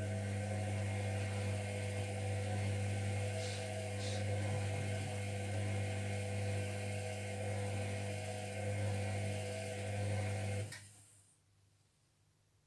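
Zerowatt/Hoover Performa 1000 washing machine running with a steady low hum during the water-heating stage of the wash, cutting off about eleven seconds in.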